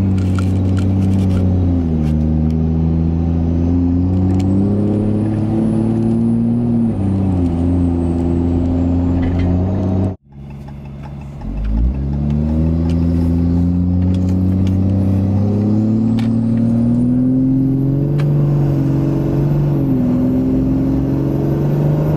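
6.7 L Cummins diesel of a 2014 Ram 2500 with a straight-pipe 5-inch exhaust, heard from inside the cab as the truck accelerates. The engine drone climbs in pitch and drops at each upshift, with a faint high turbo whistle rising alongside it. About ten seconds in the sound briefly cuts out, then the truck pulls from low speed again and shifts near the end.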